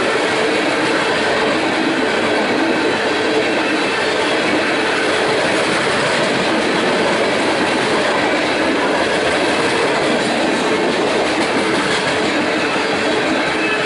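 Coal train's gondola cars rolling past at steady speed: a steady, loud rumble of steel wheels on the rails.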